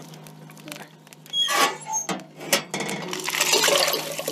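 Firewood and metal knocking and clinking at a wood stove, then water poured from a saucepan into a pot on the stove, splashing steadily from about three seconds in.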